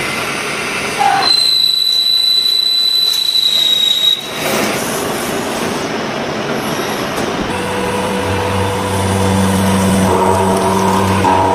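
CNC machine tool running, with a single high steady squeal for about three seconds early on, then a steady machine hum.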